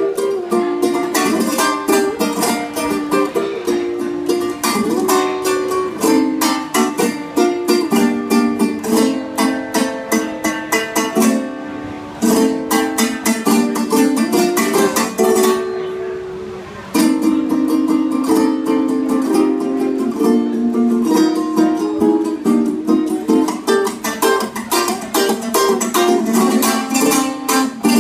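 Solo ukulele played fast, with rapid picked runs and strummed chords. Twice, about twelve and about sixteen seconds in, a note is let ring briefly before the fast playing resumes.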